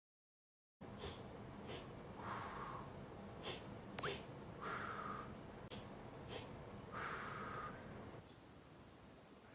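A person doing Lamaze-style 'hee-hee-whoo' breathing, three rounds of two short, sharp breaths followed by a longer blowing exhale.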